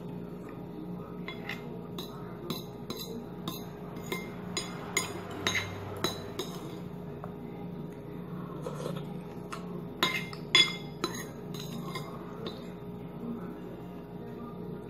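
Metal spoon clinking and scraping against a ceramic bowl while eating: a run of light clinks in the first half and a louder cluster about ten seconds in, over a steady low hum.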